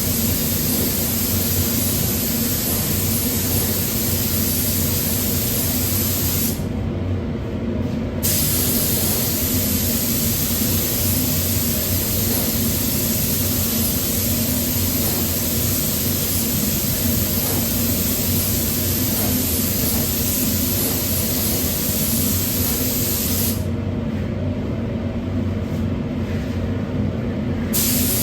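Paint spray gun hissing as 2K acrylic paint is sprayed, stopping twice for a second or a few seconds when the trigger is let go. A steady low machine hum runs underneath throughout.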